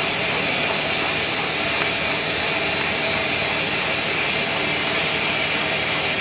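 CKPE-1200 bubble film machine running: a steady mechanical noise with a strong, even hiss.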